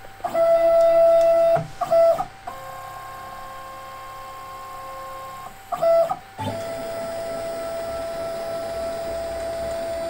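Stepper motors of a home-built CNC router driving the axes along their ball screws through an automatic homing cycle. A loud steady whine for about a second is followed by a short burst, then a quieter whine at a different pitch for about three seconds. Another short burst follows, and from about six and a half seconds in a steady whine begins as the carriage travels to the next home position.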